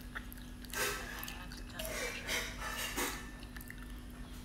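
A person slurping and eating instant noodles from a bowl with chopsticks: a few short, noisy sucks and breaths about a second apart, over a faint steady hum.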